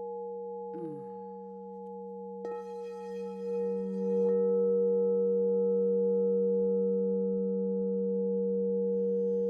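A 12-inch crystal singing bowl infused with Libyan gold tektite and platinum, tuned to G, rings with a steady low hum. About two and a half seconds in it is struck again, adding a bright shimmer of higher overtones, and a second later the tone swells louder and holds.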